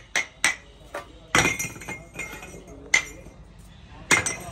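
Metal engine cylinder sleeves clinking as they are tossed one at a time onto a heap of other sleeves. Each one lands with a short metallic ring. There are about five clinks, the loudest about a second and a half in.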